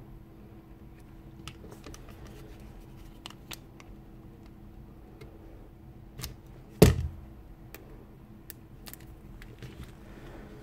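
Scattered small plastic clicks and rattles as the battery terminal block and wiring of an opened cordless impact driver are handled, with one loud knock about seven seconds in. A faint steady hum lies underneath.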